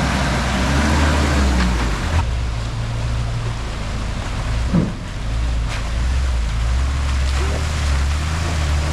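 Toyota 4x4 engine running steadily at low speed under a rush of trail and wind noise, with a few short knocks from the truck working over the rough snowy trail.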